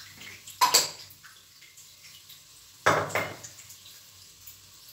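Two short clatters of a spoon against kitchen utensils, about half a second in and again about three seconds in, as salt is scooped and sprinkled into a pot of vegetables.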